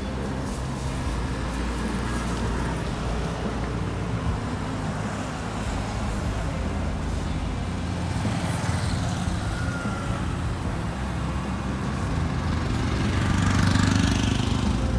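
Street traffic: a steady low rumble of vehicle engines, with a truck driving close by and growing louder near the end.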